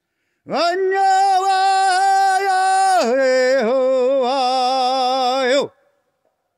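A voice singing two long wordless notes: a high note held steady for about two and a half seconds, then a lower note with a wavering vibrato for about two and a half more, cutting off suddenly.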